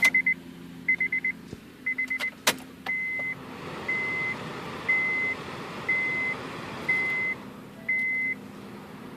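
2008 Honda Civic's dashboard warning chime sounding with the key in the ignition: three quick trilled beeps a second apart, a sharp click, then single steady beeps about once a second that stop shortly before the end, with a faint steady rush behind the later ones.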